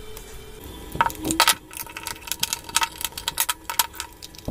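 Quick, light clicks and taps of hard plastic as a handheld digital multimeter is worked out of its rubber holster and handled, starting about a second in.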